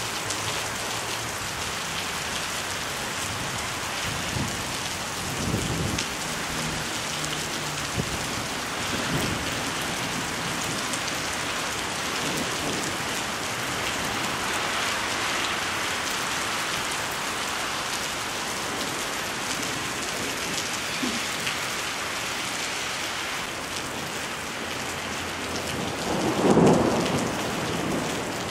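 Torrential thunderstorm rain pouring onto paved ground and parked cars, a steady hiss of water. A louder low rumble swells and fades about 26 seconds in.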